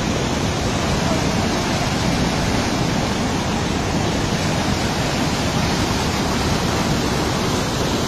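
Muddy flash-flood torrent rushing and churning over rock: a steady, loud wash of water noise.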